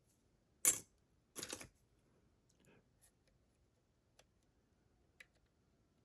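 Lock picks working the pins of a DORMA DC500 lock cylinder: a sharp metal click about half a second in, a short scraping rattle a moment later, then a few faint ticks as the pins are probed, with pin 1 thought not yet set.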